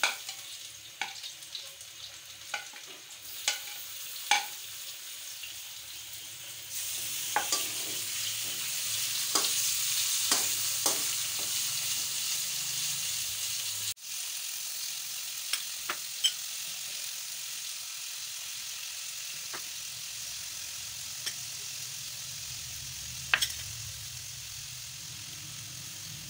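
Onions and tomatoes sizzling in hot oil in a metal wok, with a slotted metal spoon clicking against the pan now and then. The sizzle grows louder about seven seconds in.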